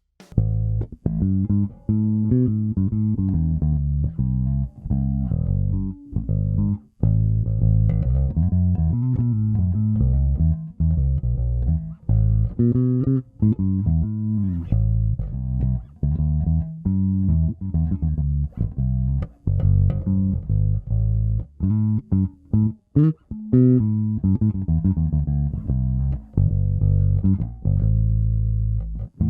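A Nordstrand Acinonyx short-scale electric bass playing an unaccompanied run of notes on its fourth tone setting, a voicing that scoops the mids a bit.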